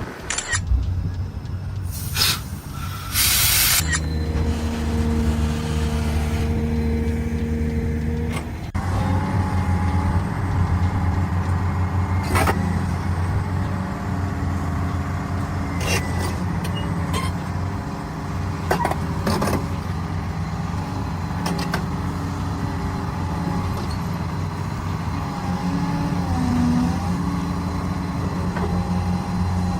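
Heavy diesel construction machinery running steadily, with its engine note shifting a few times. A loud hiss of air comes about two seconds in, and sharp knocks follow later.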